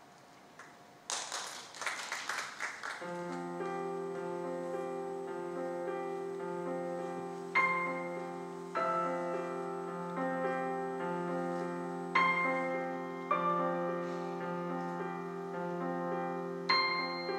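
Slow piano music. After a brief burst of rapid shimmering clicks, a low chord is held while single high notes are struck every second or few seconds.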